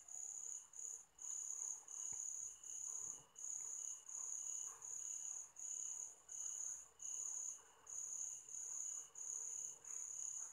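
A cricket chirping steadily: even, high-pitched chirps, a little under two a second.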